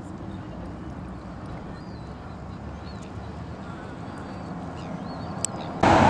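Steady low hum of distant traffic, with a few faint bird chirps around the middle. Just before the end it cuts suddenly to a much louder, even roar of nearby traffic noise.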